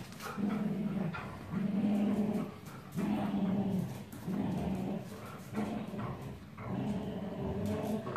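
Dogs growling in rough play: a series of low growls, each about half a second to a second long, with short breaks between them.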